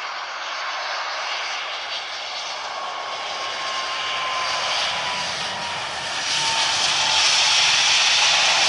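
Airbus A380 airliner's four jet engines roaring as it comes in to land, growing louder toward the end, with a thin whine sliding slowly down in pitch as it passes.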